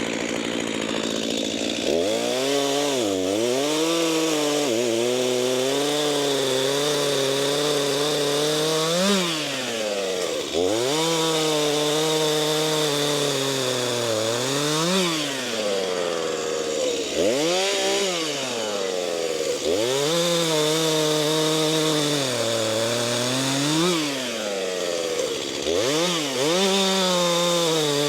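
Two-stroke Stihl chainsaw with a freshly sharpened chain cutting cherry logs at full throttle. The engine pitch drops and holds lower while the chain is loaded in the wood, then shoots up each time the bar comes free, over and over, every few seconds.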